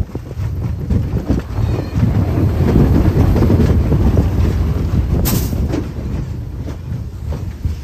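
Big Thunder Mountain Railroad mine-train roller coaster running along its track, heard from on board: a heavy rumble of wheels and cars, loudest a few seconds in. A short sharp hiss cuts in about five seconds in.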